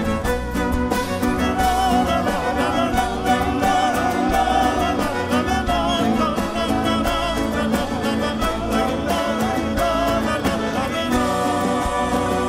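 An Argentine folk band playing live, with guitars and bandoneón and a sung melody over a steady accompaniment.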